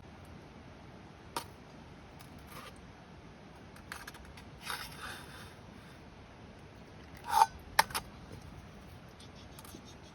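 Handling sounds: a few sharp clicks and knocks, a short scraping rustle near the middle, and a louder clink with a brief ring a little past seven seconds in, followed by two more quick clicks.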